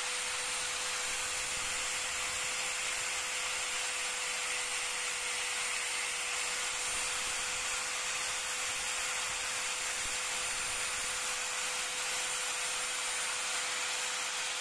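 Handheld electric angle grinder with a thin cutting disc running steadily, used on the plastic body of an ABS wheel-speed sensor, with an even whine and hiss throughout.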